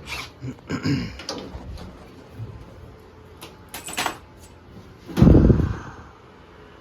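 Work-handling knocks and clatter, a few sharp clanks, then a heavy, low thump about five seconds in.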